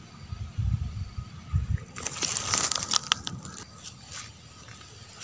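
Handling noise amid dry grass: a few dull low thumps in the first two seconds, then about a second and a half of crackling and rustling with sharp clicks.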